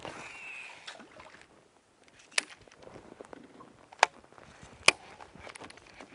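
A fishing reel's spool whirring briefly with a falling pitch as a lure is cast, then three sharp clicks about two and a half, four and five seconds in as the lure is worked on the water.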